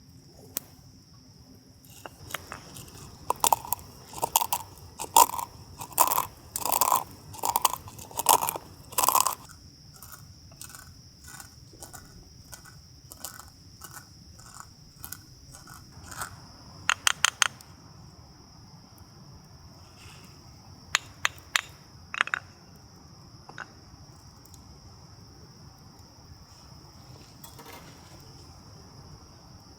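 Insects, likely crickets, trilling steadily in one high tone, with a run of crunching clicks from about two to nine seconds in and shorter groups of clicks around seventeen and twenty-two seconds.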